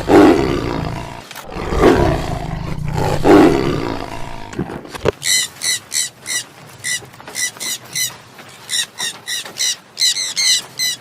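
A big cat, lion or tiger, roaring three times in long, deep roars. About five seconds in it cuts to a string of short, high-pitched squeaky calls from another animal, two or three a second.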